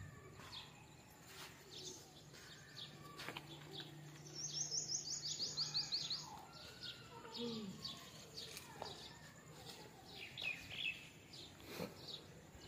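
Faint outdoor ambience with birds chirping off and on; about four seconds in, a bird gives a quick run of high repeated chirps lasting about two seconds, over a faint low steady hum.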